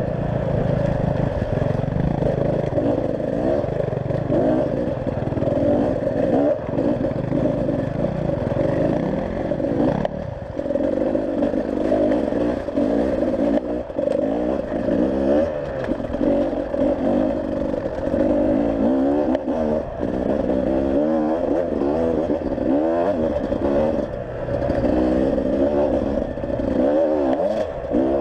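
Enduro dirt-bike engine running under constantly changing throttle, its pitch rising and falling in short surges.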